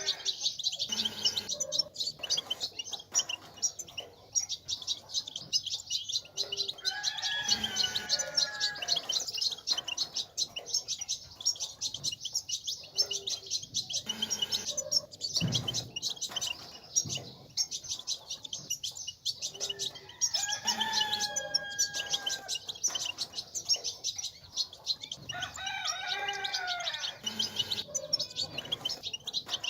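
European goldfinches singing: a dense, fast twittering of high chirps and trills. A longer, lower call with several stacked pitch lines breaks through three times.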